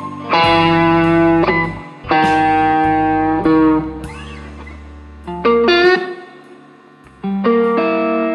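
Electric guitar playing slow blues chords, one struck every second or two and left to ring and fade.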